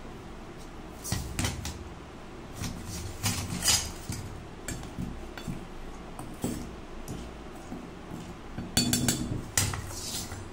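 A steel spoon and sieve knocking and scraping against a stainless steel bowl of rice flour as the flour is stirred: irregular clinks and taps, loudest in a quick run of clinks about nine seconds in.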